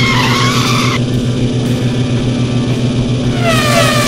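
Dubbed race-car sound effects: a steady engine drone, with a tyre screech in the first second as the cars corner, then a car whooshing past with falling pitch near the end.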